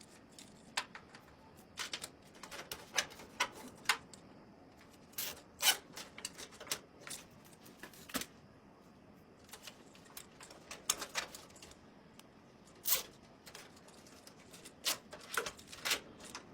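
Irregular clicks and clacks of small plastic and metal computer parts being handled and fitted, some single and some in quick clusters.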